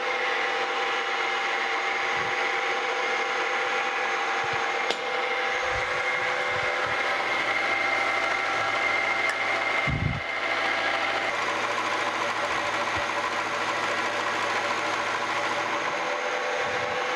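Milling machine spindle driving an end mill through a metal plate on a side pass: a steady cutting noise with a steady high whine, and a brief low thump about ten seconds in.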